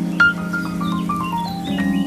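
Background music: a melody of single notes stepping down in pitch over a steady low drone.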